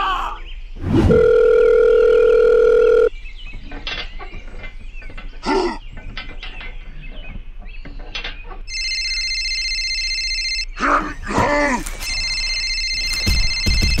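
Sound effects: a steady electronic tone for about two seconds, then a telephone ringing in two trilling bursts near the end, with short cartoon voice squeaks in between.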